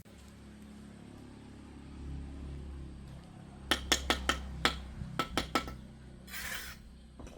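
A steady low hum, like a motor running, with a quick run of about ten sharp clinks or knocks in the middle, followed by a brief hiss.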